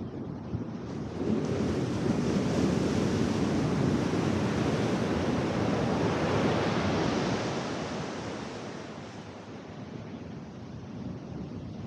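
Ocean surf: a wave breaks on the beach about a second in and its whitewater rushes up the sand for several seconds before fading away, with the next wave starting to break near the end.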